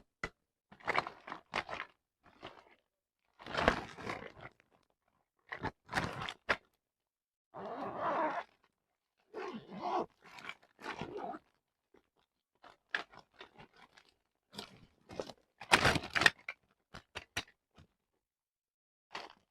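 Packaging being handled and opened in short irregular bursts of crinkling and rustling, with sharp clicks and crunches between quiet gaps.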